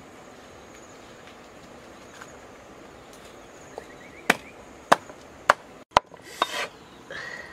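A large cleaver chopping a cooked duck into pieces on a chopping block: five sharp chops about half a second apart, starting about four seconds in.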